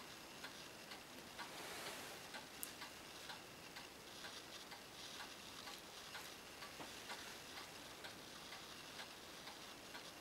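Faint light ticks and clicks, scattered through, over quiet room hiss.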